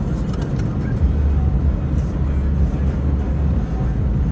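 Steady low rumble of tyres and engine heard inside a car's cabin while driving at freeway speed.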